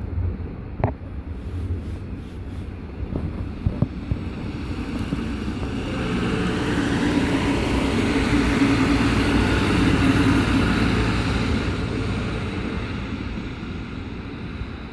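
Red two-car regional diesel multiple unit passing close by: engine hum and wheels on rail swell to a peak about eight to eleven seconds in, then fade as it runs on. Wind buffets the microphone, and a few sharp knocks come in the first four seconds.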